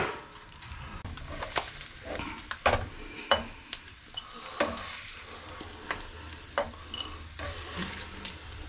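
Bacon frying in its rendered fat in a pan, a steady light sizzle, with irregular clicks and scrapes of a utensil lifting the crisp pieces out.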